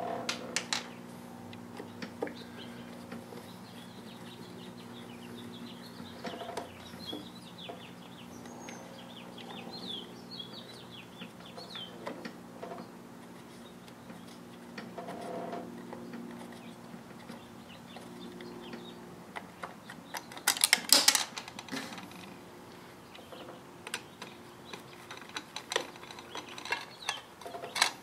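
Hand screwdriver clicking and scraping on the small screws and metal case of a Tesla drive unit's inverter as the control board is unscrewed, with a cluster of louder clinks about two-thirds of the way through. A steady low hum and bird chirps sit underneath.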